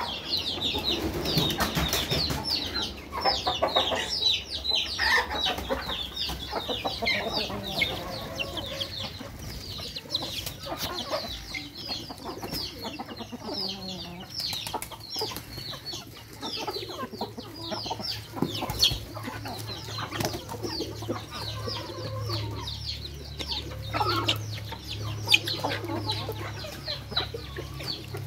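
A flock of chickens clucking and calling while they feed, a dense stream of short, high, falling calls overlapping one another.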